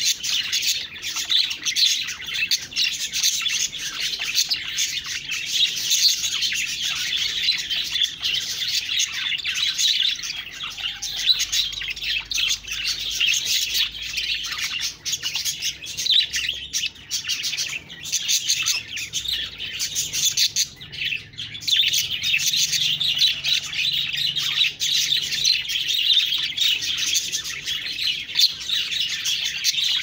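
A group of budgerigars chattering and warbling without pause: dense, high chirps and trills all overlapping.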